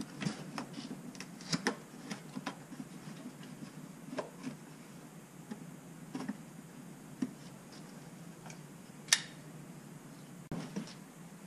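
A cardboard box being opened by hand: scattered small taps, clicks and rustles of handling, with one sharp click about nine seconds in, over a low steady hum.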